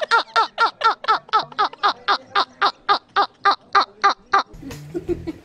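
A man laughing hard in a high, rhythmic cackle, about four 'ha's a second, each falling in pitch; it stops about four and a half seconds in.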